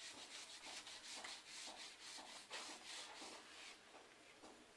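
Whiteboard eraser wiping marker off a whiteboard in quick back-and-forth strokes, about four a second. The rubbing is faint and stops a little before the end.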